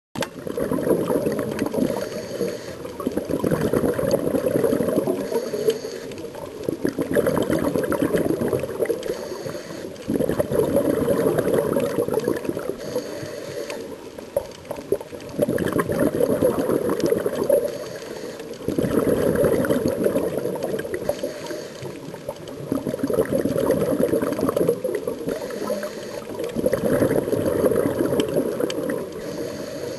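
Scuba diver breathing underwater through a regulator: exhaled air gurgles out in bubbly bursts about every three to four seconds, eight or so in all, with quieter inhale gaps between them.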